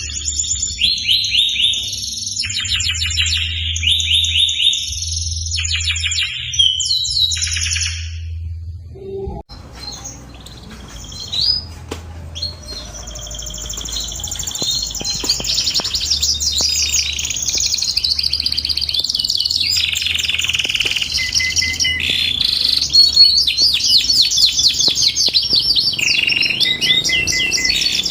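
Domestic canary singing rapid rolling trills and chirps. Short separate phrases come first, then a brief break about a third of the way in, after which the song runs on in long unbroken trills and gets louder near the end.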